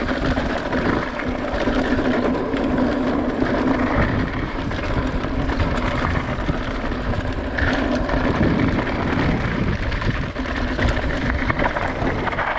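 Mountain bike riding down a dirt trail: a steady rush of wind and tyre noise with a constant clatter of small rattles and knocks from the bike.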